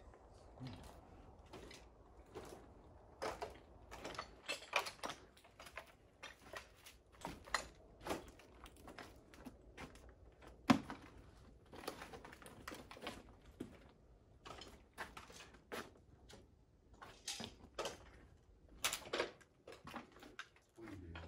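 Footsteps crunching and scraping over rubble and debris, irregular and unhurried, with one sharp knock about ten seconds in.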